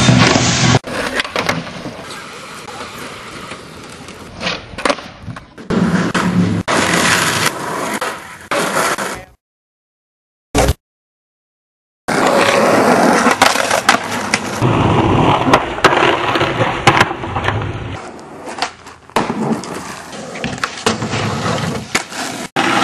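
Skateboard wheels rolling on pavement and concrete, with sharp clacks and smacks of the board hitting the ground. About nine seconds in, the sound cuts out to dead silence for about two and a half seconds, broken by one short blip, then the rolling and clacking resume.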